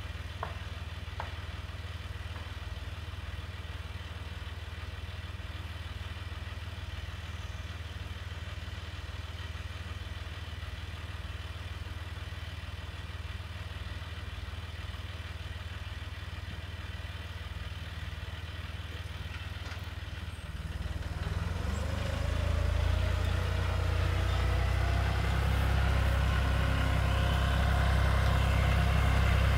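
Farm tractor engine idling steadily, then throttled up about two-thirds of the way through and growing louder as the tractor drives toward the listener.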